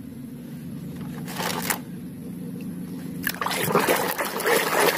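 A hand splashing and swishing through muddy water in a plastic tub, starting about three seconds in and going on to the end. Before that there is only a low steady hum and a brief rustle.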